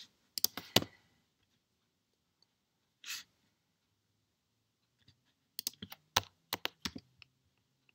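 Scattered clicks of a computer mouse and keyboard: a few sharp clicks near the start and a quick run of about a dozen clicks between six and seven seconds in. A short exhale about three seconds in.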